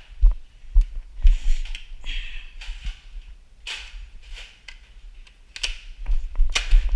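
Scattered clicks and knocks with low thumps and several short hissing rushes, from someone moving about with a Nerf blaster in hand: footsteps and handling noise.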